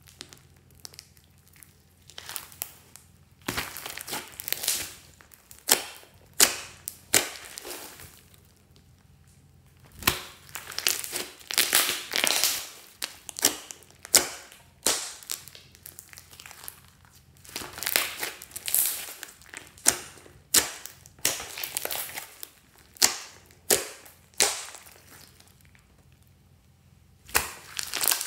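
Hands squishing, stretching and pressing a large mass of glossy slime, making sticky crackling and popping sounds. The sounds come in short bursts with brief pauses between them.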